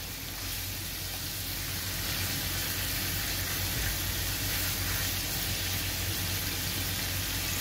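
Marinated beef pieces sizzling steadily as they fry in butter in a nonstick pan. The meat is in its early browning (bhuna) stage, just starting to change colour.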